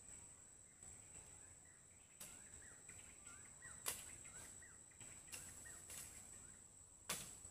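Faint field ambience: a steady high insect trill, faint short bird chirps, and four sharp clicks about a second and a half apart.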